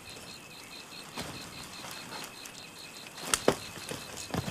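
Handling noises as a soldier's rifle and backpack are set down and people settle by a wood fire: light rustling with a few sharp knocks, the loudest pair a little past the middle. Behind them is a faint, steady, evenly pulsing high chirping.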